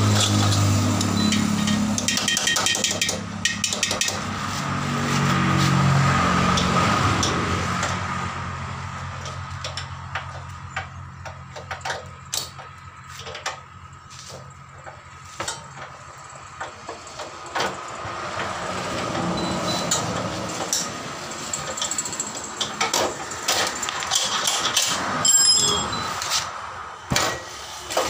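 A vehicle engine running with shifting pitch, fading after about eight seconds. Then scattered metallic clicks and knocks of hand tools working on a motorcycle's rear wheel and axle.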